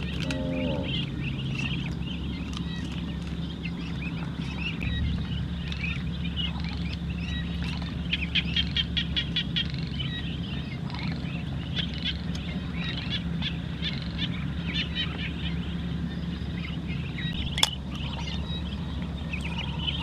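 A flock of ducklings peeping continuously as they feed, with a quick run of louder peeps about eight seconds in and a single sharp click near the end. A steady low hum runs underneath.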